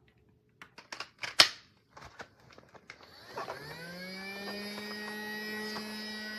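Plastic clicks from a Casdon Dyson toy cordless vacuum being handled, with one sharp click about a second and a half in. About halfway through, its small battery motor starts, rising in pitch, then runs steadily with a whine.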